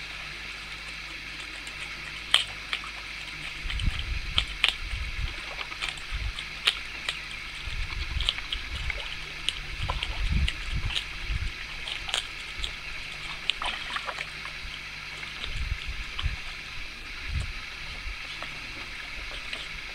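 Giant otter chewing a fish, with sharp irregular cracks of crunching bones every second or two over lapping water. Low rumbling comes and goes through the middle.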